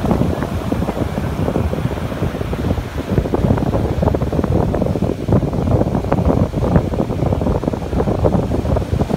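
Ocean surf breaking and foamy swash washing up over sand, in a steady loud rush, with wind buffeting the microphone as a low rumble.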